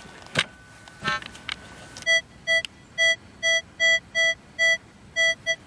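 Metal detector giving a run of nine short beeps at one steady pitch, about two a second, as the coil passes over a target. This is the tone that the detectorist then hears as a good signal. A knock comes just before, then a brief rising chirp.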